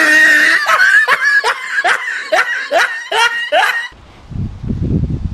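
Loud, high-pitched laughter: a run of about nine quick, rising "ha" pulses that cuts off abruptly about four seconds in. Then a low rumble of wind on the microphone.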